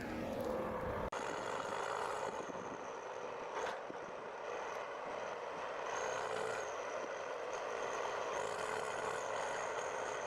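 Heavy forestry machine running, with the sound changing abruptly about a second in and a faint high whine that rises briefly twice later on.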